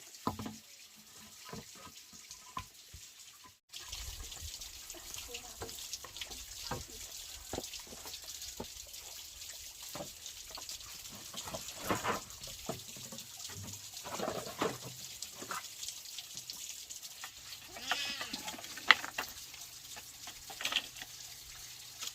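Goats bleating a few times, over the sound of running water and scattered knocks and clatter.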